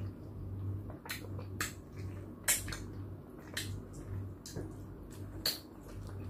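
Close-miked mouth sounds of someone eating ripe mango: wet smacks and sucking as the soft flesh is bitten off the skin and chewed, a sharp smack about once a second, over a steady low hum.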